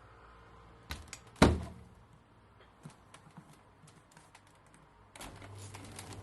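Tumble dryer being started: a couple of clicks and a loud thump about a second and a half in, a few light clicks, then about five seconds in the motor starts with a steady low hum and the drum turns with light ticking knocks.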